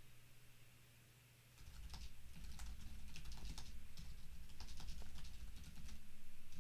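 Computer keyboard typing: a quick run of keystrokes that starts about a second and a half in, after a short pause.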